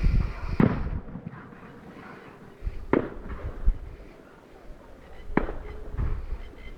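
Fireworks display heard from a distance: a series of sharp bangs and low booms a second to a few seconds apart, each trailing off in a rumble.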